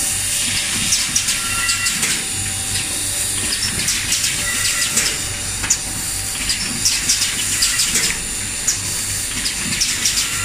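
Premade-bag granule packing machine running: a steady hum and hiss with frequent short, irregular clicks and ticks.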